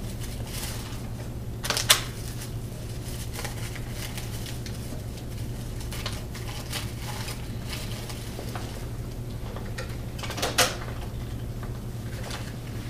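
Small clicks and knocks of hands threading ribbon through a Zebra R110Xi4 label printer's open print mechanism, with two louder knocks, about two seconds in and near the end, over a steady low hum.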